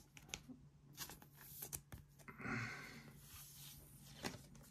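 Faint rustling and light clicks of trading cards being handled and laid down on a table, with a longer rustle about two and a half seconds in, over a steady low hum.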